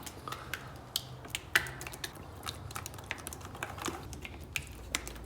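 Irregular light clicks and taps, several a second, over a low steady hum.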